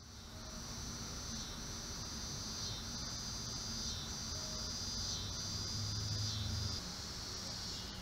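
Insect chorus: a continuous high-pitched trill with a slight rise and fall about once a second. A faint low hum joins in briefly a little past the middle.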